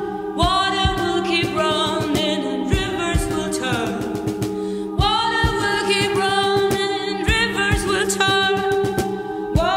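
Music: several voices singing in layers over a steady low drone, with new phrases swooping in every second or two.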